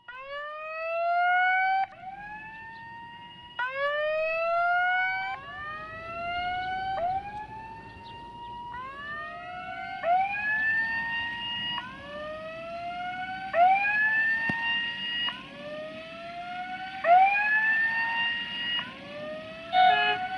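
A siren sounding a rising whoop over and over, each rise about a second and a half long and repeating about every 1.7 seconds. Near the end a short, steady multi-tone horn blast starts, from the approaching electric locomotive.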